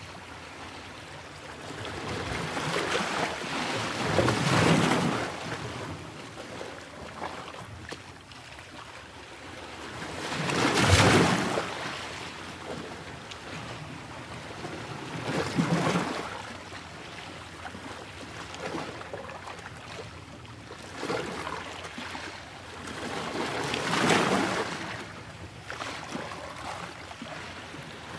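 Water rushing in slow swells over a steady hiss, each surge building and fading over a second or two, about every five seconds; the loudest surge comes about eleven seconds in.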